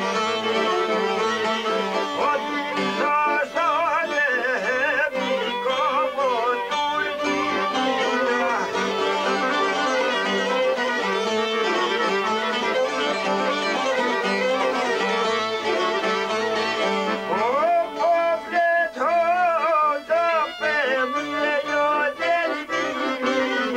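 Albanian folk music on violin, sharki and çifteli: the violin leads with wavering, ornamented melody lines over the plucked and strummed long-necked lutes.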